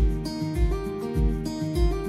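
Background music with a steady low beat, a little under two beats a second, under held melodic notes.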